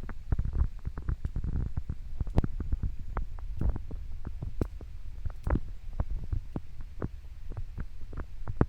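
River water gurgling and plopping close by: a constant low rumble with many irregular, sharp little plops.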